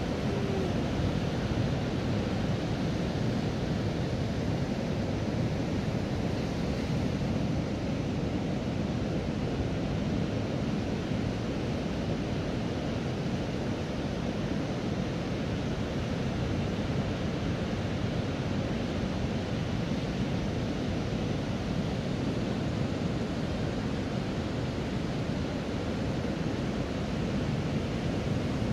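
Ocean surf breaking on a sandy beach, a steady continuous wash of waves.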